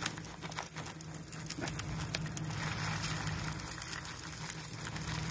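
Mixed bird seed poured from a plastic bag into a clear plastic feeder hopper, the seeds pattering on the plastic in many small, quick ticks. A steady low hum runs underneath.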